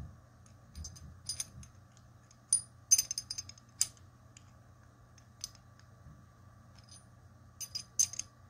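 Pieces of a small metal puzzle clicking and clinking against each other as they are twisted in the hands. The clicks come in scattered clusters, each with a short metallic ring, loudest about three seconds in and again near the end.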